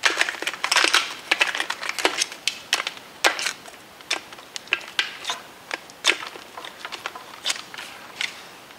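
Quick, irregular clicks and crackles of hard plastic: a training push dagger's tip knocking and scraping against a plastic anatomical skull and its hinged jaw as the skull is handled, the clicks thinning out toward the end.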